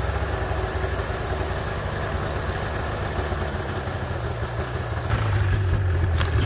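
Yamaha Phazer snowmobile's two-stroke twin idling steadily just after a cold start in deep cold, exhaust smoking. It gets a little louder about five seconds in.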